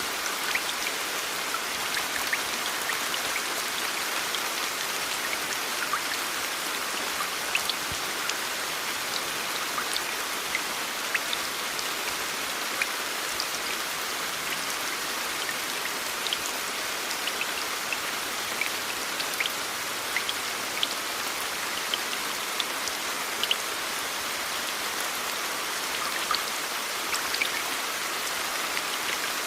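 Steady rain falling, an even hiss with many distinct drops ticking on a surface.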